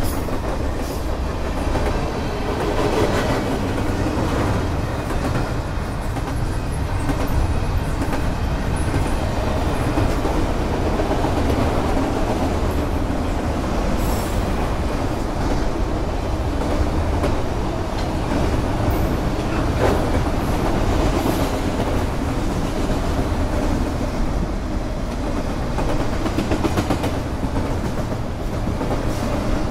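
Freight cars of a long mixed manifest train rolling past: a boxcar, a tank car and a string of autorack cars. A steady rumble of steel wheels on the rails.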